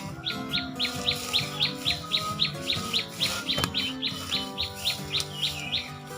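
A bird calling in a fast, even run of short falling chirps, about three or four a second, that stops near the end, over steady background music. A single sharp click comes about three and a half seconds in.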